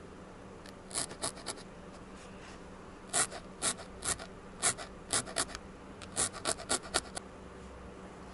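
A felting needle stabbing through wool tops into a foam felting pad: short, crisp scratchy pokes at an uneven pace, a few about a second in, then a quicker run of a dozen or so through the middle.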